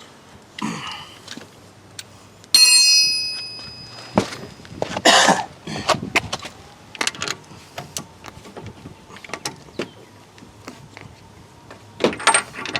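Hand tools clinking on metal car parts. A sharp metal strike about two and a half seconds in rings on for about a second. Scattered clicks, knocks and a brief clatter follow.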